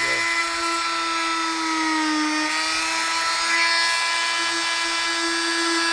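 Electric oscillating multi-tool running steadily with a high buzzing whine as its blade cuts into a pumpkin. The pitch sags briefly about two seconds in as the blade is pressed into the cut, then recovers.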